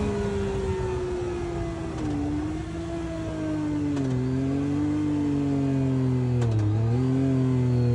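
A car engine running while driving. Its note slides slowly down, then dips and climbs again about four seconds in and once more near the end.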